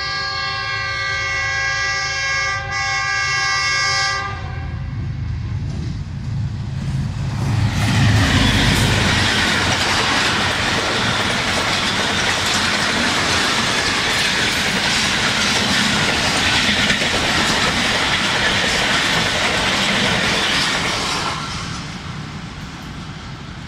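GEU-40 diesel-electric locomotive sounding its horn, a steady held chord for about four seconds as the train approaches. The locomotive then passes close by with a deep engine rumble, followed by the coaches rushing past at speed with wheels clattering over rail joints, and the sound fades near the end.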